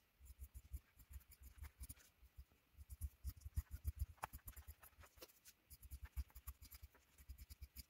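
Fabric scissors cutting through two layers of cotton fabric along a paper pattern: a quick, irregular run of faint snips, several a second, with soft low knocks under them.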